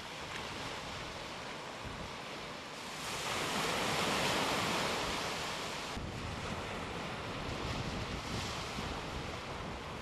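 Surf washing onto a beach, swelling louder about three seconds in and easing back a few seconds later, with wind rumbling on the microphone in the second half.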